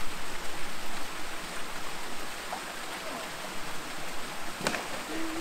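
Steady rush of water pouring over a small weir into a canal, with a single sharp knock about four and a half seconds in.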